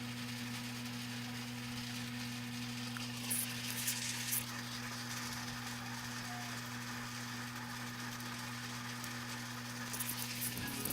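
Sardines with sautéed tomatoes and onions sizzling softly in a pan over a steady low hum, with a few light clatters of a spoon stirring about three to four seconds in and again near the end.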